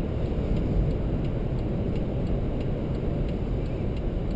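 Steady low road and engine noise heard inside the cabin of a 2011 Chrysler 200 cruising at highway speed, with faint light ticks at intervals.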